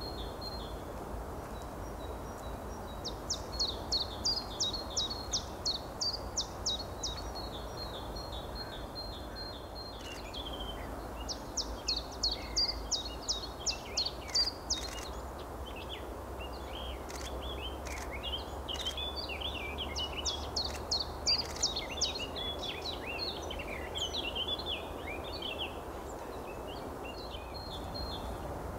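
Songbirds singing: runs of quick, sharp high notes, about three a second, lasting a few seconds each, then a longer stretch of varied chirps. A faint steady low rumble runs underneath.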